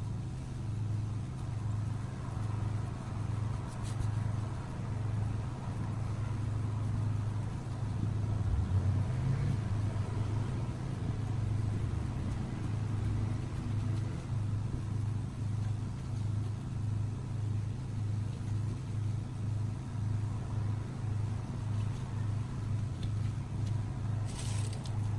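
A motor running with a low, steady hum that pulses about twice a second from the middle on.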